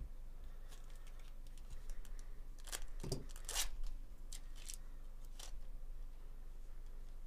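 Wrapper of a Bowman Chrome baseball card pack being torn open and crinkled by hand. There is a cluster of sharp rips and crackles about three seconds in, with lighter rustles around it.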